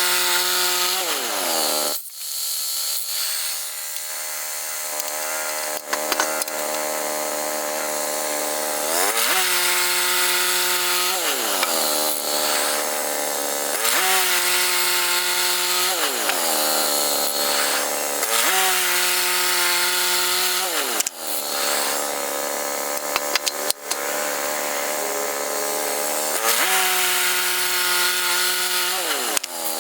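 Woodland Mills HM122 bandsaw mill's gasoline engine running hard as the band blade cuts through a log. The engine's pitch sags and recovers again and again, every two to three seconds in the second half, over a steady sawing hiss and occasional clicks.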